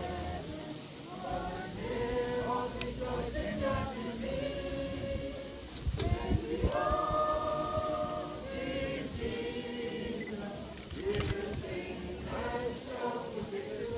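A crowd of people singing together in slow, long-held notes.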